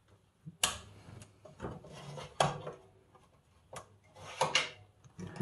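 Hands handling a small circuit board and its parts: a string of knocks and rubbing sounds, about half a dozen in a few seconds.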